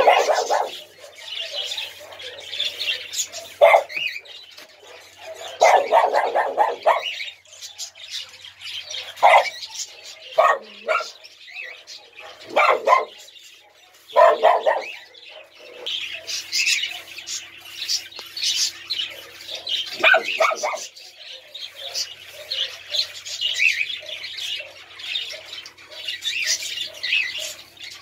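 Small dogs yapping and barking in short outbursts, about a dozen times, over constant high chirping of birds.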